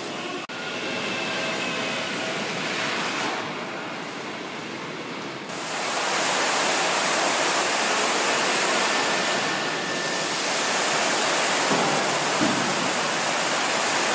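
Train wash spraying water over a subway car as it passes through, a steady rushing hiss of water that grows louder about five and a half seconds in.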